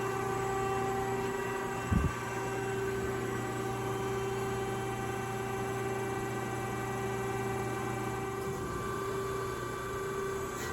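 Amada HFB1253 hydraulic press brake's pump and motor running with a steady electric hum, with one short low thump about two seconds in.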